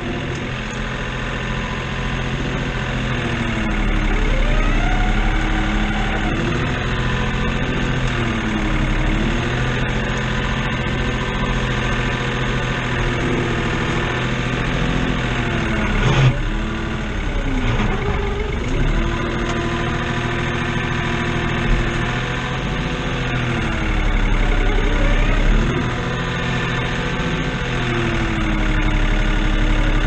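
New Holland tractor's diesel engine running, heard from inside the cab while the front loader lifts and moves a round hay bale, with a whine that rises and falls in pitch again and again. A single sharp knock about 16 seconds in.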